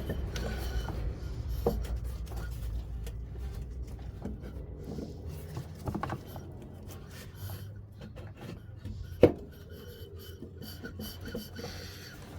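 Hand work on a Range Rover Sport's rear air suspension: parts rubbing and scraping, with scattered small clicks and one sharp knock about nine seconds in.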